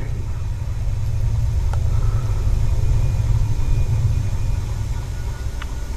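A low rumble that swells toward the middle and eases off again, with a faint click or two.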